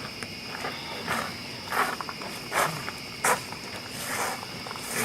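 Crickets chirping steadily, with five short rustling scuffs spaced under a second apart, the loudest near the middle.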